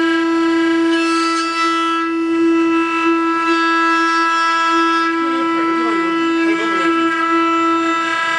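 Multi-head CNC wood router's spindles running at high speed, giving a loud, steady, high whine. A fainter wavering sound joins in about five seconds in and fades about two seconds later.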